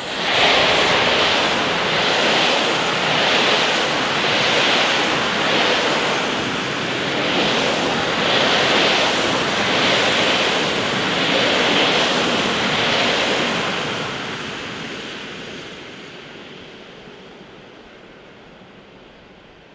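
Passenger coaches of a PKP Intercity train rolling past close by: a loud rush of wheels on rail that swells and dips about every second and a half as each coach goes by, then fades away as the train recedes.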